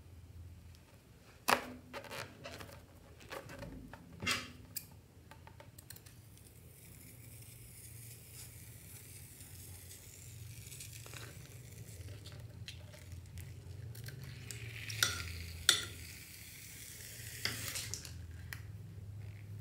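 White foam hissing and sputtering as it is squeezed out through the neck of a balloon, with a few sharp clicks near the start and again near the end.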